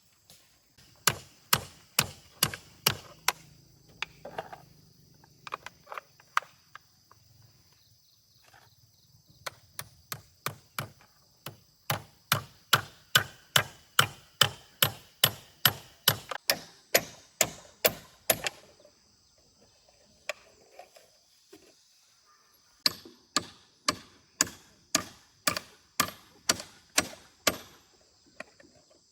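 Wood being chopped: runs of sharp, even strikes about two to three a second, broken by a few short pauses.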